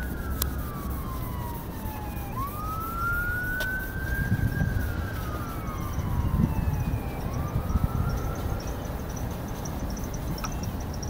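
An emergency vehicle's siren wailing in a slow rise and fall, climbing and sinking in pitch about two and a half times, over a low rumble of traffic.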